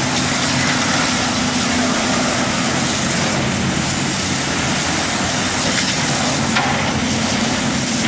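Water spraying from a hand-held hose nozzle against the steel inside of a concrete mixer truck's drum, a steady hiss over the steady low hum of the truck's engine running.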